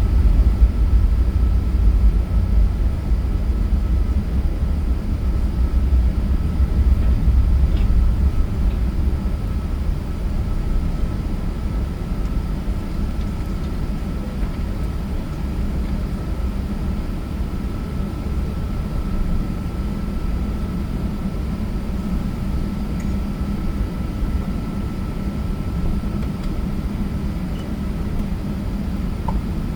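Steady low rumble of an Emirates Airbus A380-800 airliner's jet engines, with a faint steady high tone running through it. The rumble eases slightly over the first ten seconds, then holds even.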